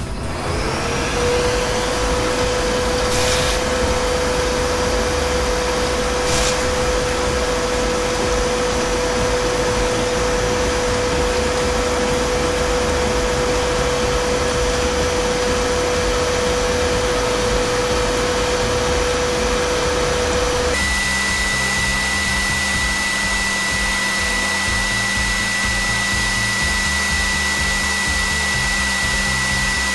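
Wabeco F1200 milling machine cutting a slot under CNC control: the spindle, set to 8000 rpm, gives a steady whirring hiss, over which the X-axis stepper motor whines at one steady pitch, climbing to it in the first second as the feed starts. About 21 s in the whine jumps to a much higher pitch as the sound is played four times faster.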